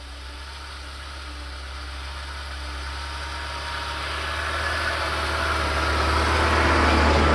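UAZ Patriot SUV's engine running as it drives up through deep snow toward and past, growing steadily louder as it comes closer.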